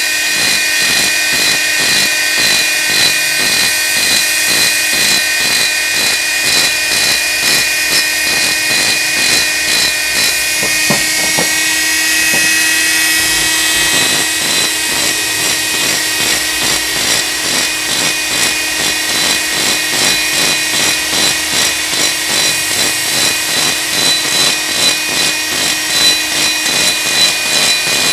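Electric mini grinder running with a steady high whine, its burr grinding inside the port of an aluminium motorcycle cylinder head to smooth off the rough cast 'orange peel' surface. Through the second half the sound swells and eases in quick pulses as the bit works along the port wall.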